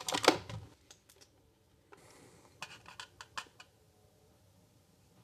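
Ground coffee being tipped from an electric burr grinder's round catch container into an espresso portafilter. There are a few knocks at the start, then a brief faint rustle of grounds sliding out, then a quick run of small clicks and taps as the container knocks against the portafilter.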